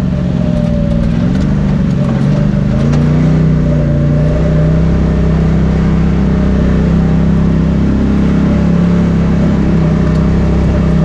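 Side-by-side UTV engine running while driving over a dirt trail, with wind and tyre noise; the engine note dips and climbs again about two seconds in, then holds steady, with a few light rattles.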